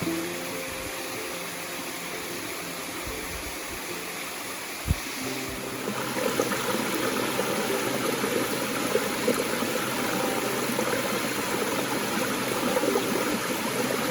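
Fall Branch Falls waterfall rushing steadily, growing louder and fuller about six seconds in. A single dull thump comes just before that.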